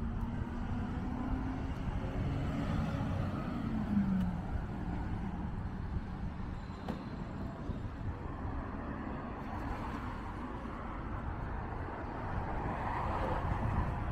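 Road traffic running past, with a low rumble throughout. A vehicle engine's tone drops in pitch about four seconds in, and a passing vehicle swells louder near the end.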